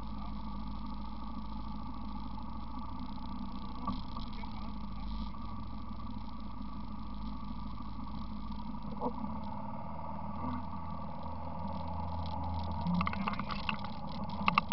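ATV engine running steadily at idle, its low note changing about two-thirds of the way in as the quad starts to move off. A few short knocks come near the end.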